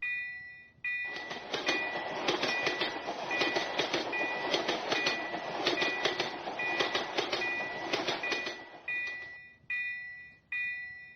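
Japanese railroad crossing warning bell ringing its steady "kan-kan", a clang a little more than once a second, while a train passes with rattling, clacking wheels. The train noise fades out near the end, leaving the bell ringing alone.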